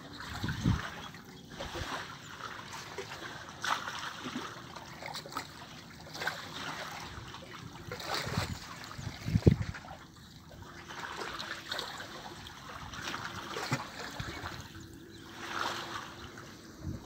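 Small waves lapping and splashing against the shore at the water's edge, in uneven surges.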